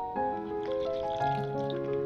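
Background instrumental music: a melody of steady notes that change every fraction of a second.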